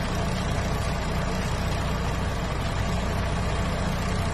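Semi-truck's diesel engine idling steadily, a low even rumble.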